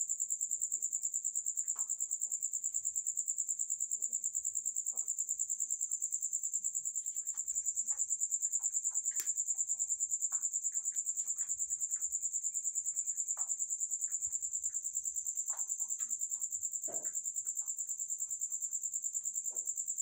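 Crickets chirping in a continuous, rapid, high-pitched trill, with faint scattered clicks and rustles underneath.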